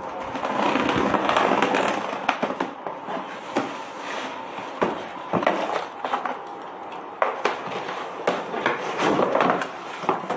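A cardboard shipping carton being opened and handled: a stretch of scraping and rustling of cardboard near the start, then scattered sharp knocks and clicks as the flaps are bent back and the carton is moved.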